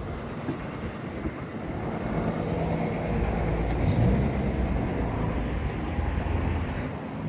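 A motor vehicle passes on the street, its engine and tyre rumble swelling to a peak a few seconds in and easing off near the end.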